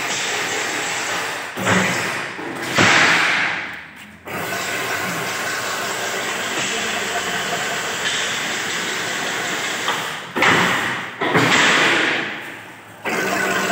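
Chain-link fence making machine running with a steady mechanical clatter. Twice, about eight seconds apart, a thump is followed by a loud rushing burst that fades into a brief lull before the running noise picks up again.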